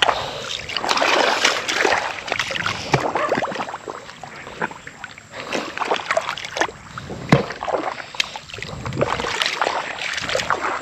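Footsteps splashing and sloshing through shallow tidal water over soft mud, in an irregular run of steps.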